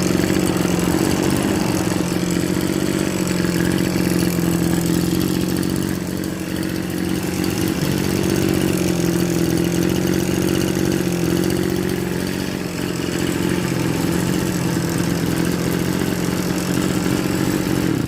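Small motorcycle engine idling steadily, its level even with only slight dips.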